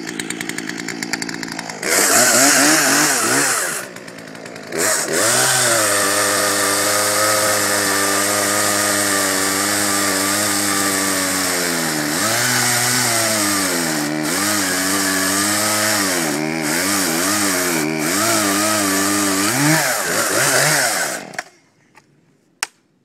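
Poulan P3314 two-stroke gas chainsaw idling, revving up, then cutting through a dense hardwood log at full throttle, its engine speed sagging and recovering under load. It stops shortly before the end.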